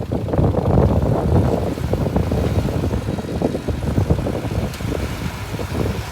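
Mitsubishi BD2F bulldozer's diesel engine running with a steady low rumble, with quick rattling knocks through it.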